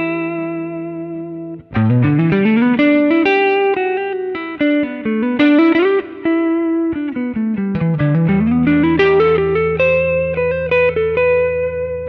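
Gibson Les Paul R9 electric guitar played through a Fractal Audio AX8 on its Marshall JTM45 amp model. A held note rings out, then a fast lead run climbs up the neck about two seconds in, winds back down around eight seconds in, and climbs again to a held note near the end.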